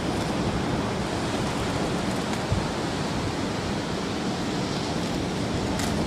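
Steady rush of sea surf breaking on the beach, mixed with wind.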